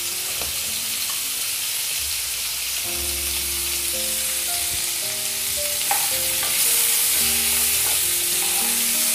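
Baby potatoes sizzling as they fry in hot oil in a non-stick pan. The sizzle gets louder about two-thirds of the way through as the potatoes are stirred. Faint background music with held notes plays underneath.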